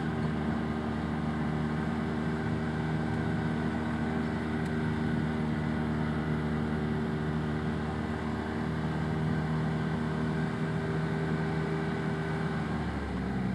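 Arctic Cat Wildcat Trail UTV engine running at a steady cruising speed, a constant drone that eases off near the end.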